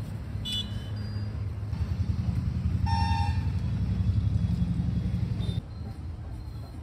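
Road vehicle engine rumbling, growing louder and then cutting off abruptly near the end, with a short horn toot about three seconds in.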